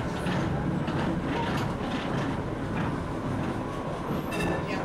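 Vintage tram running along its line, heard from inside the car: a steady low rumble of the wheels and running gear on the rails, with frequent clicks and rattles of the car body. A brief high-pitched tone sounds near the end.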